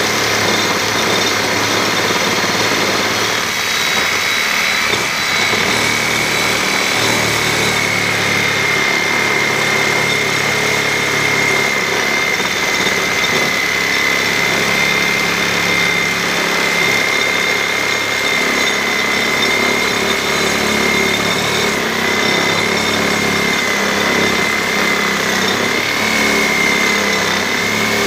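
Reciprocating saw with a Lenox diamond-grit blade cutting through a concrete block. It runs steadily: a gritty noise with a high whine over it.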